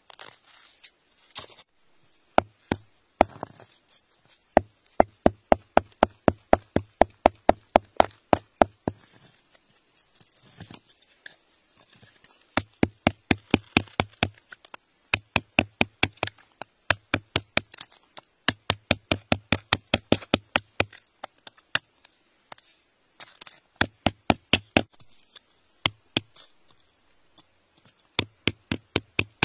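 A thin metal rod jabbing into gravelly soil, making quick runs of sharp knocks, about four a second, with short pauses between runs.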